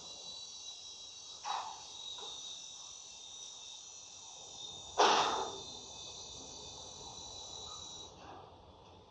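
Steady chorus of crickets, several high trills at once, broken by two sudden harsh bursts of noise: a small one about one and a half seconds in and a louder one about five seconds in. One of the highest trills stops near the end.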